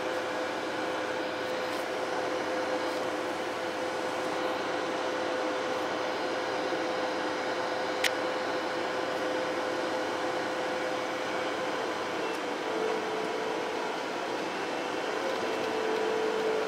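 Bobcat skid-steer loader's engine running steadily, heard from inside its cab, with a steady whine that dips a little in pitch near the end. One sharp click about eight seconds in.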